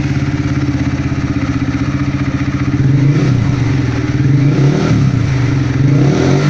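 Honda CG Start motorcycle's single-cylinder four-stroke engine running through an aftermarket exhaust packed with glass wool. It idles with a steady pulse, then is blipped up and down several times from about three seconds in, at well under half throttle.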